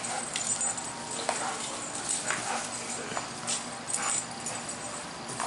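A dog snapping at soap bubbles: sharp clicks of its jaws about once a second, with brief whimpering.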